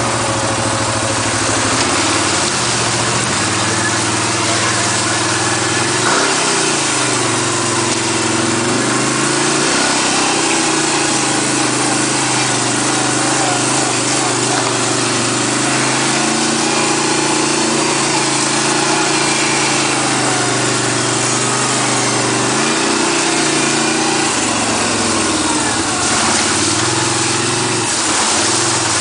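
ATV engine running on a trail ride, its pitch dropping and climbing again several times as the throttle is let off and opened.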